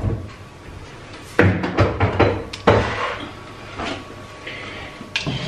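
Kitchen handling sounds: a few sharp knocks and clatters, the loudest cluster about a second and a half in and another a second later, then a short hiss near the end.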